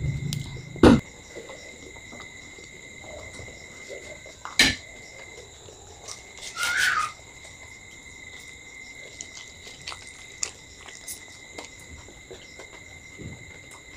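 Two people eating: chewing with a few sharp crunchy bites or clicks, about one second and four and a half seconds in, and a short rustling burst near the middle, over a steady high-pitched whine.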